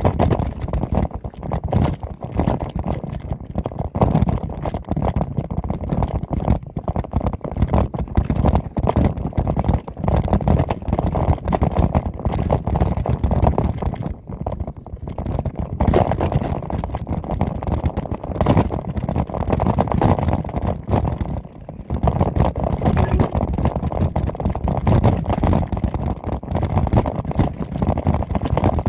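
Wind buffeting the microphone, mixed with the continuous rumble and rattle of riding fast down a rocky dirt trail. The noise is steady and loud, with no engine note in it.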